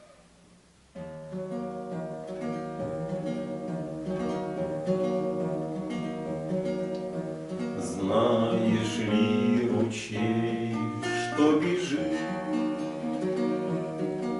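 Instrumental introduction to a hymn, led by acoustic guitar, starting suddenly about a second in and turning into fuller strumming from about eight seconds.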